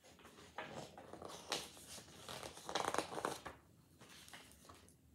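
Paper rustling and crinkling as the pages of a picture book are handled and turned: a string of uneven rustles, loudest about three seconds in.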